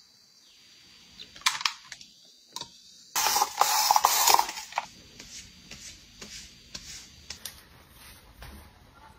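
Close-up hand-handling sounds: a couple of sharp clicks, then about a second and a half of loud rustling, then soft scattered taps and rustles.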